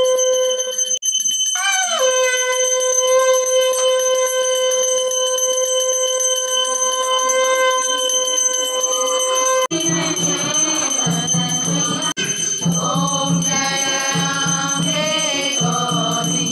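Devotional music with constant jingling: a long steady held note over dense bell-like rattling for the first ten seconds or so, then singing over a regular drum beat.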